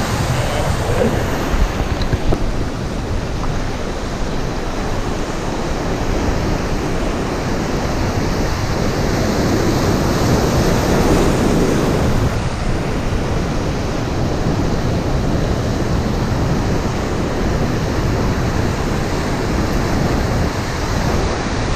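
Breaking surf washing in close to the microphone, a steady rushing wash of waves that swells louder about halfway through.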